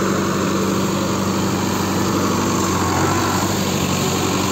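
Sonalika tractor's diesel engine running steadily as it pulls a loaded trailer of paddy through harvested field stubble.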